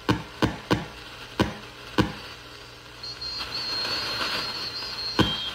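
Audio from a homebuilt TinyPICO IQ receiver being tuned across the 40 m band: a sharp click at each frequency step, several in the first two seconds and one more near the end. These are the clicks its maker puts down to how the Si5351 PLL is reset on each frequency change. From about three seconds in, a steady high-pitched tone is heard from an off-tune signal, since the receiver has no audio filtering, until the last click cuts it off.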